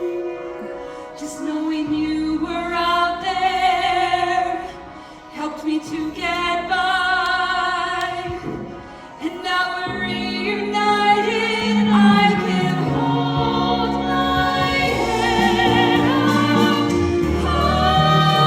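Stage-musical singing with vibrato on held notes over instrumental accompaniment. It swells fuller and louder about halfway through.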